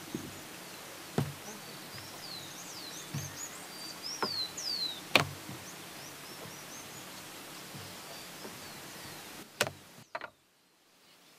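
Wooden rolling pin working dough on a wooden table, giving a few sharp knocks, while small birds chirp with short falling calls over a steady outdoor hiss.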